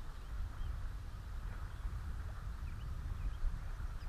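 Wind buffeting the microphone in an uneven low rumble, with faint short bird chirps scattered through.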